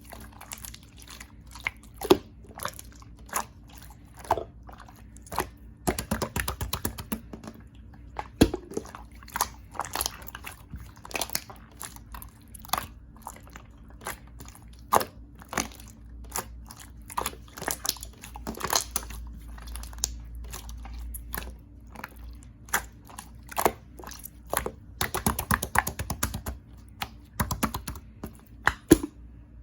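Clear slime being squeezed and stretched by hand, its trapped air bubbles popping in irregular sharp clicks several times a second.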